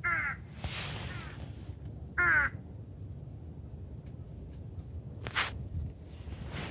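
A crow cawing twice, two short harsh calls about two seconds apart, the second louder. Between them there is a brief hiss, and a short sharp sound comes later.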